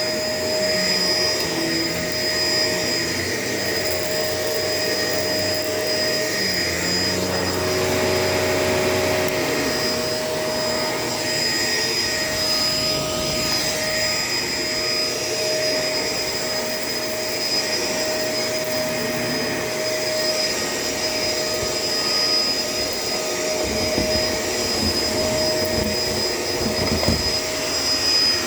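Shark LA702 vacuum cleaner running steadily with a high motor whine while being pushed over the kitchen floor, with some low bumps near the end.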